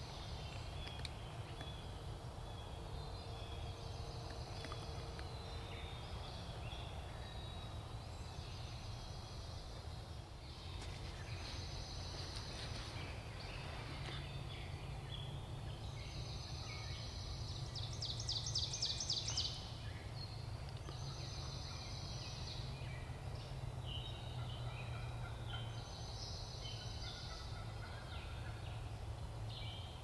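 Wild turkey gobbler gobbling once, a quick rattling call about two-thirds of the way in, over high bird calls that repeat every few seconds and a steady low rumble.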